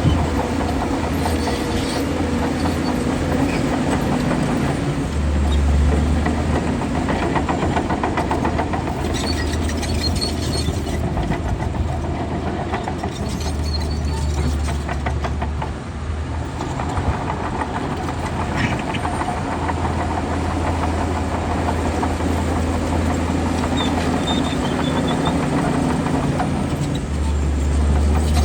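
Bulldozer's diesel engine working under load, swelling louder for a second or two three times as it pushes, with scattered metallic knocks from the crawler tracks.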